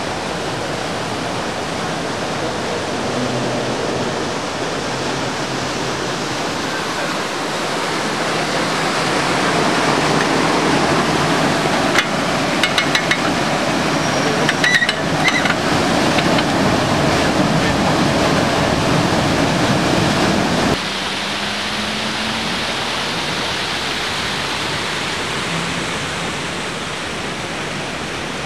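Steady rush of water pouring through the lock's sluice valves as the lock chamber fills or drains. About halfway through comes a run of sharp metallic clicks from the geared hand crank that works the lock. Near three quarters of the way in, the rush drops suddenly to a lower level.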